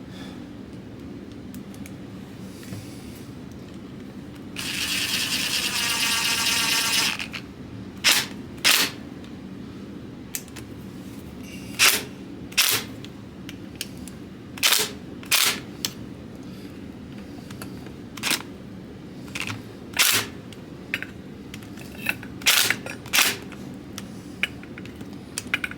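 Sharp clicks and knocks of tools and engine parts being handled and set down on a workbench, irregularly spaced, about fifteen of them. About five seconds in, a harsh scraping noise lasts roughly two and a half seconds.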